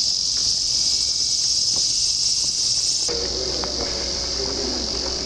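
Dense, steady, high-pitched chorus of summer insects in the forest. Its texture shifts abruptly about three seconds in.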